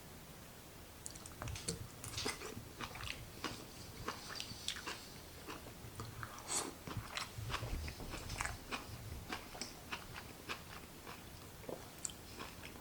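A person chewing firm, chewy duck gizzard close to the microphone, with many small wet clicks and crunches from about a second in.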